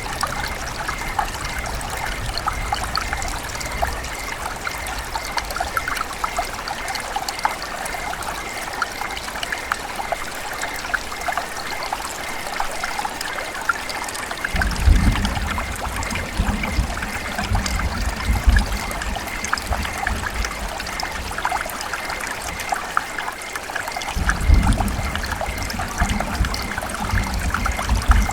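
River water running and trickling steadily, full of small splashes and drips. A deeper low rumble swells in twice, about halfway through and again near the end.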